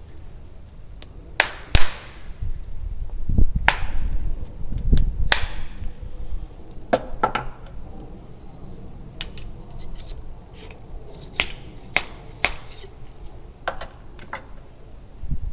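An irregular series of sharp cracks and knocks, about fifteen in all. The loudest comes about two seconds in, and several trail a short echo.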